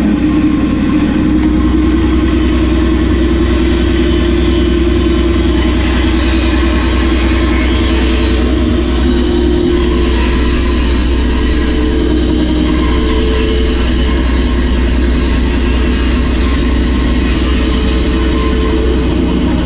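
Bandsaw running steadily and cutting through a thick wood burr that is turned against the blade on a circle-cutting jig. A steady high whine joins the machine noise about halfway through.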